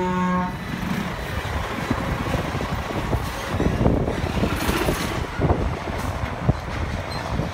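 Road traffic and truck noise by a highway, a continuous rumble with scattered knocks. A short steady tone sounds in the first second.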